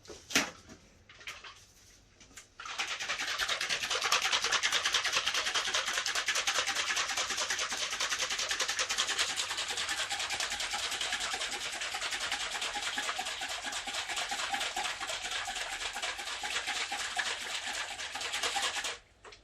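Bottle of 3D-printer resin being shaken hard and fast: a dense, even, rapid shaking noise that starts a couple of seconds in and runs on for about sixteen seconds before stopping suddenly, after a few light knocks at the start.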